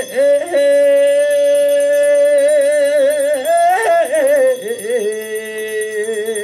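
Korean funeral bier song (sangyeo sori) music: a long, steady melodic note that ends in a wavering, bending ornament. A lower note is then held from about five seconds in.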